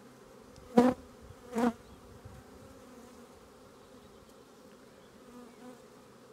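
Honey bees humming around an open hive, with two short, loud buzzes about a second and a second and a half in as bees pass close by.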